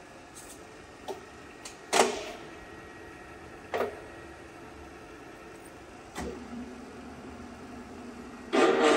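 Metal clunks from the feed-rate selector knob and levers on a TOS-Kuřim FNK 25 milling machine's knee being shifted to change the table feed, over a faint steady hum of the machine running. There are several sharp clunks, the loudest about two seconds in, and a longer, louder rattling clatter near the end.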